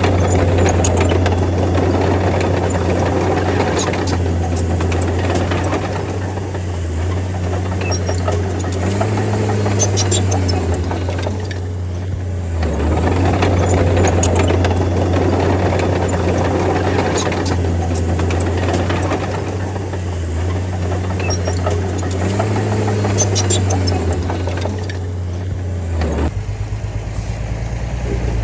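Crawler bulldozer's diesel engine working under load, swelling and easing every few seconds as it pushes, with scattered metallic clanks. Near the end the sound drops suddenly to a quieter, steadier note.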